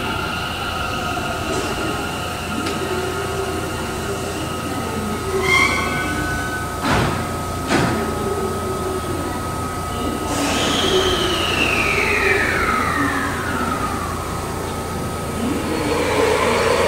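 Kintetsu 21020 series Urban Liner next limited express departing an underground station: a door chime, the doors shutting with two knocks about 7 and 8 seconds in, a whine falling in pitch, then the Mitsubishi IGBT-VVVF traction motors starting to rise near the end as the train pulls away.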